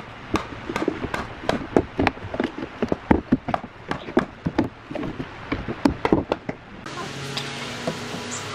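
A thin wooden strip being bent and pressed against nails on a plywood form: a dense run of irregular clicks and knocks of wood on wood and metal. About two-thirds of the way through, this gives way to a steady low hum with a few knocks.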